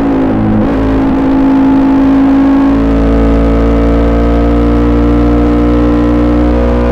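KTM Duke 200's single-cylinder engine running through an aftermarket SC-Project SC1-R exhaust with a powerbomb header, on the move. The note shifts within the first second or so, then holds a fairly steady pitch with a deep rumble.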